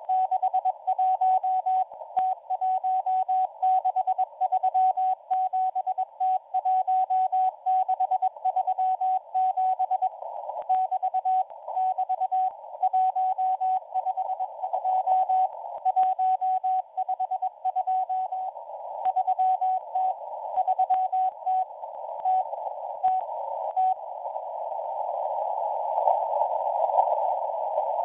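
M01 numbers station sending Morse code on shortwave: a steady tone keyed in dots and dashes through a receiver's narrow CW filter, over hiss and static crackles. The keying stops about 24 seconds in, leaving only the filtered band hiss.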